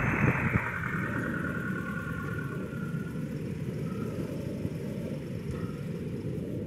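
FCCA draisine #9, a rail inspection car towing a small cart, running away along the track: a steady low rumble of engine and wheels on the rails, with a few clanks at the start and a higher rattle that fades over the first few seconds as it draws off.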